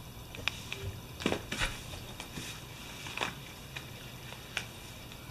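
Small cardboard eyeshadow boxes being handled and swapped: a scattering of faint taps and clicks, about eight spread over a few seconds, over a low steady hum.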